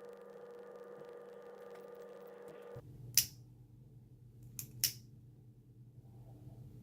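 A lighter being struck to heat shrink tubing: one sharp click about three seconds in, then two more in quick succession about a second and a half later. A low steady hum fills the first half and stops abruptly.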